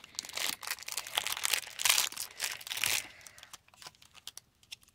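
Toy packaging being handled and torn open. It crinkles and tears densely for about three seconds, then gives only a few light clicks.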